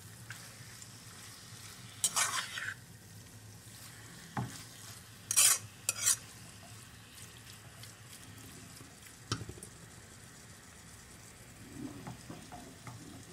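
Diced chicken frying with onions and garlic in a pan, a steady low sizzle as it browns. A utensil stirs and scrapes the pan: sharp scrapes about two seconds in, twice around five to six seconds, once near nine seconds, and softer knocks near the end.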